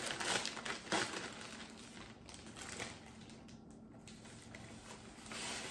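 Plastic poly mailer bag crinkling as it is pulled open and handled, loudest in the first second or so, then quieter rustling as a hand reaches inside.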